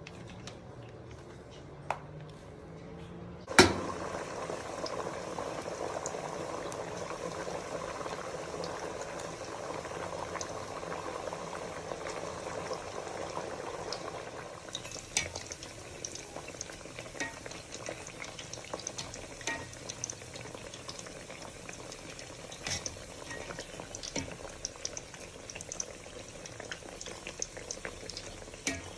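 Banana and cassava-flour pancakes sizzling as they fry. The sizzling starts up after a sharp knock about three and a half seconds in, then later turns lighter with many small scattered pops.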